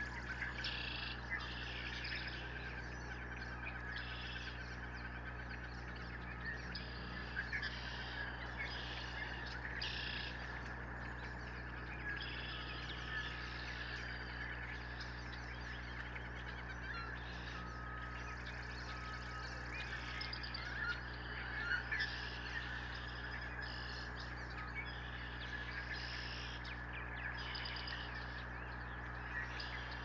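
Small birds chirping and singing in short repeated phrases, about one a second, over a steady low hum.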